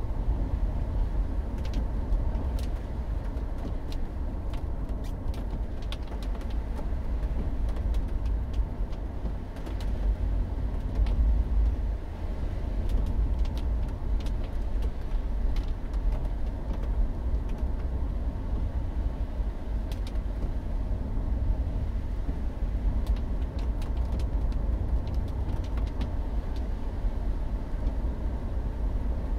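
Mercury Grand Marquis heard from inside the cabin while driving on a wet road: a steady low rumble of engine and road noise, with scattered faint clicks.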